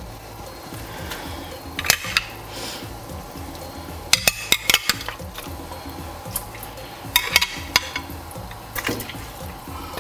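Pieces of raw pork rib dropped by hand from a glass dish into a stainless steel pot of water, with splashes and sharp clinks and knocks against the pot in several short groups.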